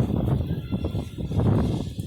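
Strong gusting wind buffeting the microphone: a low, rough rumble that swells and dips.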